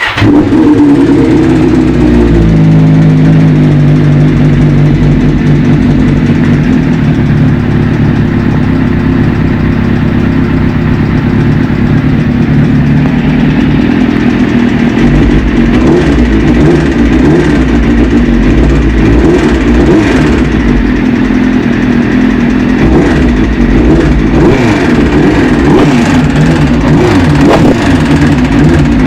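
Suzuki GSX-R750 inline-four motorcycle engine running, with a knock from the engine that the owner is recording as a fault. It turns more uneven from about halfway through.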